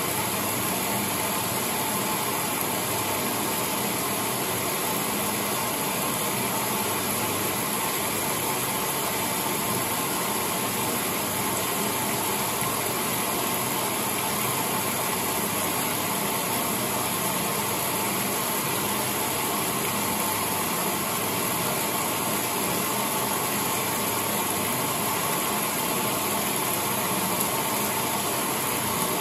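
Late-1970s Maytag A806 top-load washing machine running with a steady, even mechanical whir that does not change.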